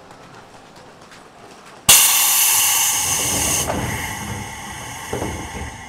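A Seibu 3000 series electric train's pneumatic air system at a station stop: after a couple of seconds of quiet, compressed air suddenly hisses out loudly, then fades into a lower rush over the next two seconds or so.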